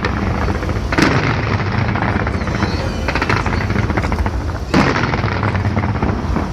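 Fireworks going off in a dense, continuous barrage of bangs and crackle, with heavier booms about a second in and again a little before the end.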